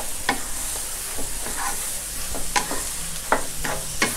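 Fish maw and shrimp stir-frying over high heat in a nonstick wok: a steady sizzle, with a wooden spatula scraping and knocking against the pan several times as it tosses the food.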